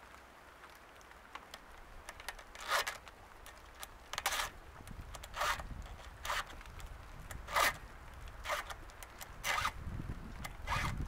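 Hand file rasping across the cutting teeth of a Husqvarna 455 Rancher chainsaw chain while it is sharpened: about eight short forward strokes, roughly a second apart, starting about three seconds in.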